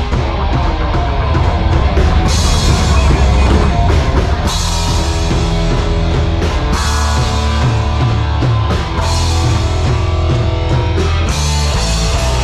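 Background rock music with a steady drum beat and repeated cymbal crashes.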